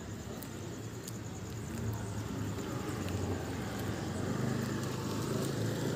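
Low, steady engine hum of a road vehicle, growing a little louder from about two seconds in.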